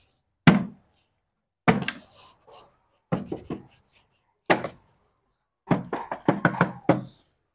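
A partly filled plastic water bottle is flipped and lands on a wooden cabinet top with a sharp knock. Single knocks come every second or so, then a quick run of knocks near the end as the bottle lands and rocks.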